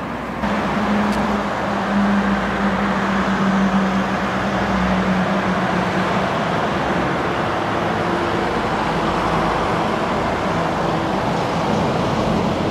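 A train running past on the Pajares mountain line: a loud, steady rumble that comes in suddenly just after the start, with a low hum that fades after about six seconds.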